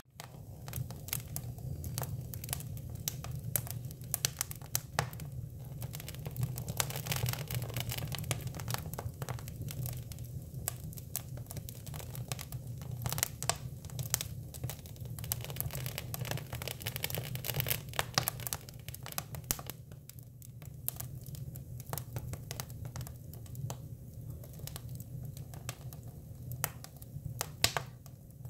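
Hinoki cypress wood burning in a fire, crackling with irregular sharp pops and snaps, which come thicker and more hissing for a couple of stretches.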